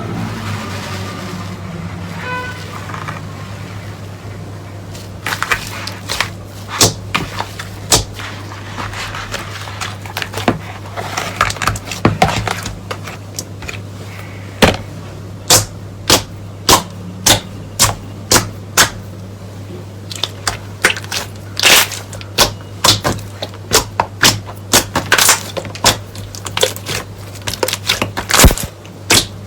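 Slime being pressed and worked by hand, giving sharp crackling pops, quiet at first and then coming about two a second, over a steady low hum.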